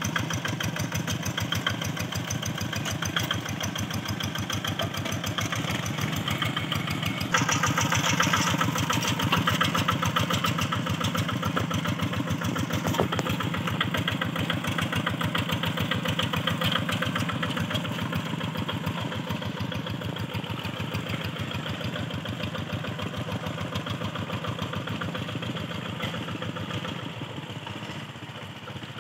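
Two-wheel hand tractor's single-cylinder diesel engine running steadily under load while pulling cage wheels through flooded paddy mud to puddle it before harrowing. A fast, even chugging that gets louder about seven seconds in and then slowly fades as the tractor moves away.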